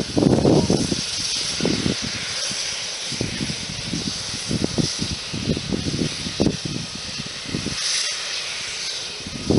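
SNCF 140 C 314 2-8-0 steam locomotive approaching slowly, steam hissing steadily from the front of the engine where the cylinder cocks vent, with soft irregular low thumps underneath.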